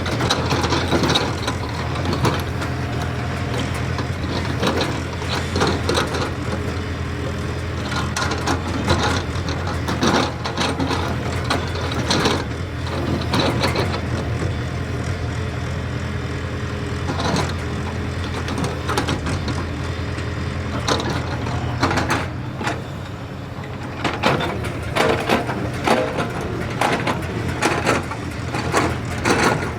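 JCB excavator's diesel engine running steadily under work, with irregular knocks and clanks from the machine and its load, thicker near the end.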